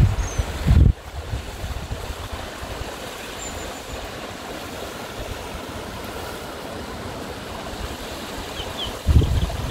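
River water rushing steadily over rocks. Wind buffets the microphone in the first second and again near the end.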